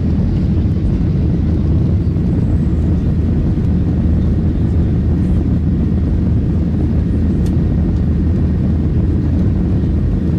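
Airliner noise on take-off: a loud, steady low rumble that keeps an even level and pitch throughout.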